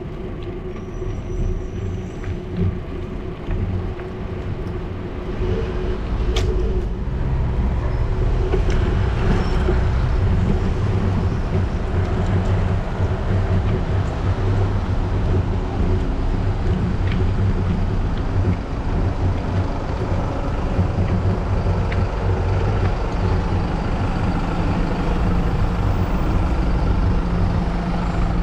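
Street traffic heard from a moving bicycle: a steady low rumble of engines and tyres, which grows louder about eight seconds in, with a city bus close by.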